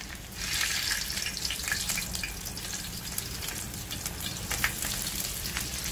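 Chapli kabab shallow-frying in hot oil on a tawa: a steady sizzle with scattered pops and crackles. A louder rush of sizzle comes about half a second in as whole green chillies go into the oil.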